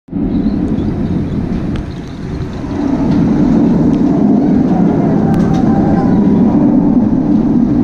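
Steel roller coaster train running along its track, growing louder about three seconds in as it comes past.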